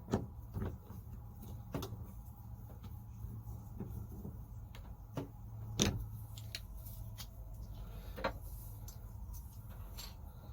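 Scattered clicks and knocks of hands and tools working on a shower faucet's parts as it is taken apart, the loudest about six seconds in, over a steady low hum.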